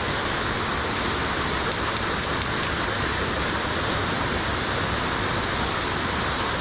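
Steady rushing of a large waterfall, heard from the rocks at its lip. A few faint high ticks come about two seconds in.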